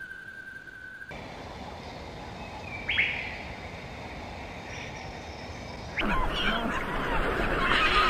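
A steady high whistle-like tone stops abruptly about a second in. A small songbird gives a single sharp call about three seconds in over a light hiss. From about six seconds in comes the loud, dense, overlapping calling of a kittiwake colony.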